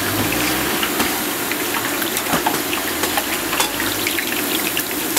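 Hot oil sizzling and crackling steadily in a large wok as a giant parotta deep-fries, over a low steady rumble.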